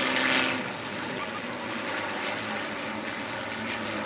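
Several Zlin Trener propeller aerobatic planes flying overhead in formation, their piston engines and propellers droning steadily, a little louder in the first half second.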